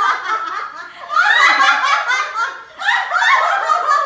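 Several women laughing hard together, in waves that die down and swell up again about a second in and near three seconds.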